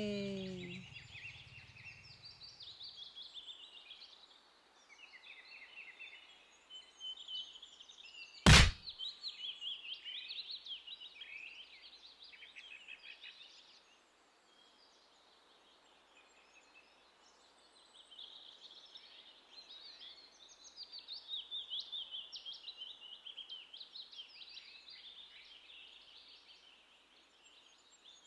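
Birds calling around the campsite: many quick high chirps and rapid twittering runs, thinning out for a few seconds in the middle. A single sharp knock about eight seconds in is the loudest sound.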